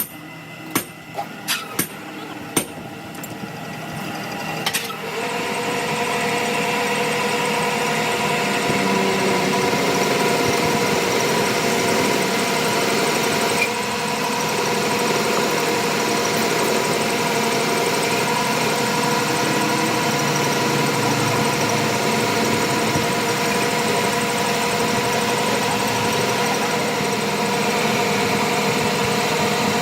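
A few sharp metal knocks, then a machine motor starts up about four seconds in, builds to speed, and runs steadily with an even hum.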